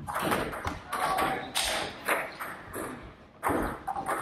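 Table tennis rally: the celluloid ball clicking sharply off the bats and bouncing on the table, in an irregular run of taps about every half second.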